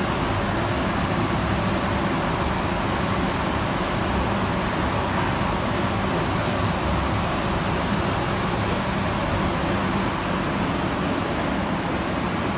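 Steady rushing noise with a low hum at a charcoal grill oven, where a rib eye steak cooks over glowing coals.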